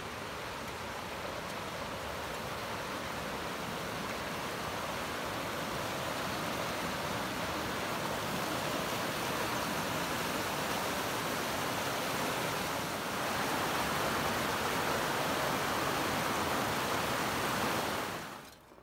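Steady rush of flowing water, growing gradually louder, that cuts off sharply near the end.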